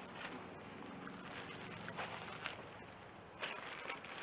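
Quiet outdoor ambience with faint bird calls and a couple of soft clicks.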